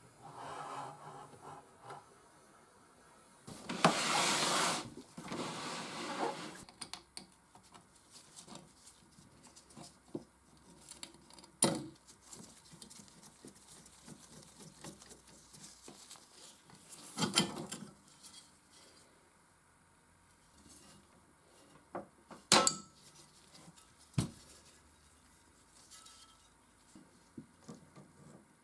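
Metal parts of a Consul 221 typewriter being handled during disassembly: scattered sharp clicks and clinks, with a louder rubbing noise lasting about three seconds, starting about four seconds in.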